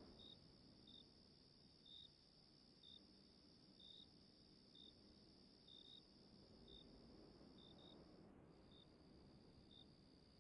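Faint night ambience of crickets: a steady high trill with separate short chirps repeating about once a second.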